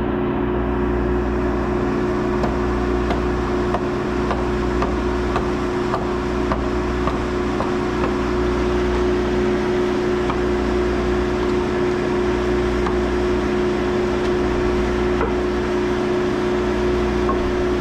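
Skid steer engine running steadily with an even hum, with a few faint knocks over it.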